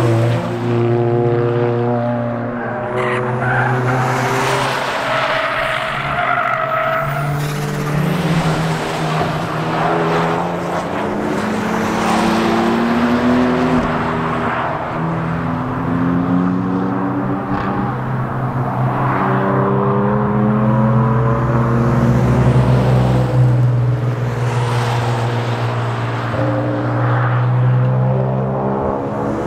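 Track cars' exhausts as they run one after another through a corner, the engine notes dropping off and rising again, with more than one car heard at once at times.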